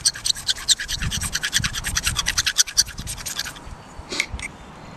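Steel striker scraping a magnesium fire-starter block in fast, even strokes, about seven a second, shaving magnesium into a tinder nest; the scraping stops about three and a half seconds in. Two short, sharp scrapes follow as the striker is drawn along the flint strip.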